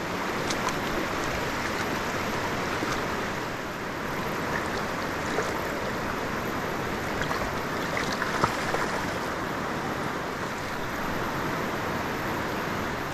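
Shallow river running over stones: a steady rush of flowing water, with a few faint ticks through it.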